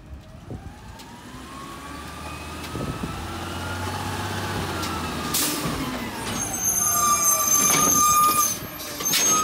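Automated side-loader garbage truck pulling up to the curb, its engine growing louder as it approaches, the pitch rising and then falling. A short air-brake hiss comes about five seconds in. Then a steady high whine as the hydraulic lifting arm reaches out.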